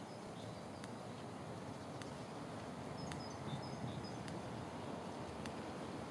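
Outdoor background ambience: a steady low rumble of noise, with a few faint high bird chirps about three seconds in.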